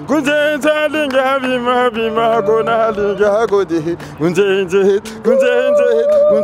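A man singing a melody with a wavering vibrato, accompanied by an acoustic guitar, ending on a long held note.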